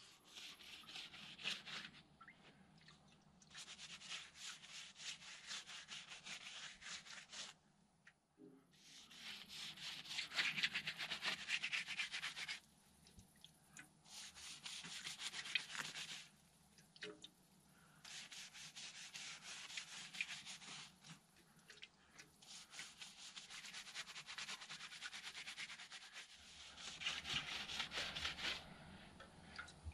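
Quick back-and-forth rubbing strokes on a timber log wall, in runs of a few seconds with short breaks between, the loudest run about ten seconds in.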